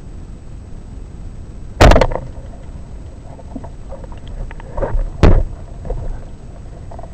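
Rubber-band speargun fired underwater: one loud sharp snap about two seconds in. A few small clicks follow, then a second equally loud sharp knock about three seconds later, all over a steady underwater hiss.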